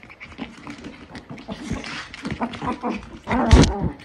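Chihuahuas play-fighting, making short pitched dog vocalisations. Near the end there is a loud bump as a dog knocks into the phone.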